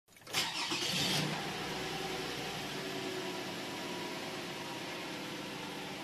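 Car engine starting, catching with a loud burst in the first second, then idling steadily.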